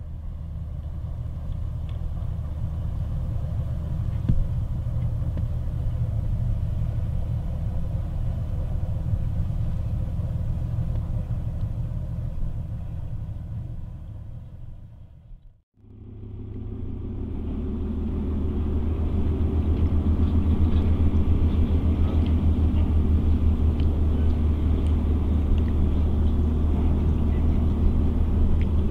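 Cargo ship M/S Westborg's diesel engine running with a steady low rumble as the ship comes in to berth. The sound drops out briefly about halfway through, then comes back louder.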